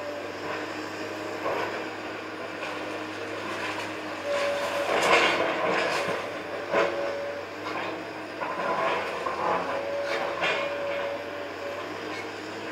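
Komatsu tracked excavator working at demolition: its engine runs steadily under load, a steady tone comes and goes, and there are repeated knocks and crunches of breaking and shifting debris, loudest about five seconds in.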